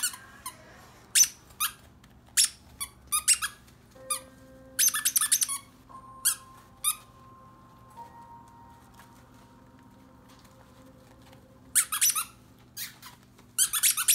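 A purple plush squeaky bone toy squeezed by hand, giving short, high squeaks, sometimes one at a time and sometimes in quick runs. There is a pause of several seconds in the middle.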